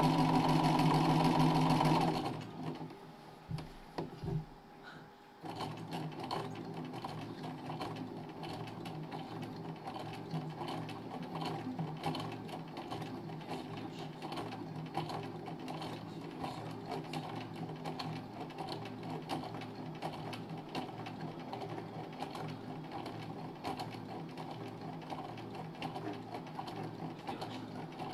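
Domestic sewing machine doing free-motion embroidery: the needle stitches through hooped linen under a free-motion foot. It runs loud for about two seconds, goes much quieter for about three seconds with a few knocks, then runs on steadily and more quietly with fine, even needle ticks.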